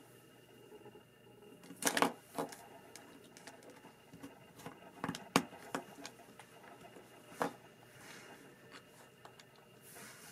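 Lego Technic pieces being handled and pressed together: a few sharp plastic clicks and small knocks, the loudest about two seconds in and about five seconds in, and another near seven seconds.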